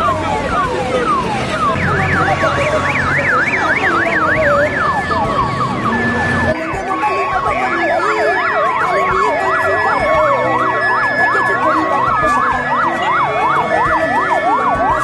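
Several vehicle sirens sounding at once from a slow-moving convoy, overlapping fast up-and-down yelps with some falling wails near the start.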